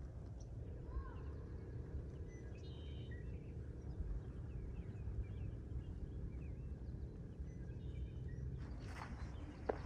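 Outdoor ambience: a low, uneven rumble of wind on the microphone with a few faint bird chirps scattered through. Near the end come several footsteps and a sharp click.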